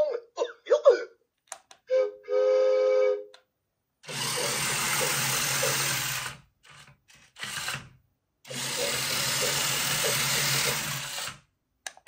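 Small electric motor of a battery-powered remote-control trackless toy train whirring steadily as it drives, in two runs of about two and a half seconds with a pause between. Before that, a short steady tone sounds about two seconds in.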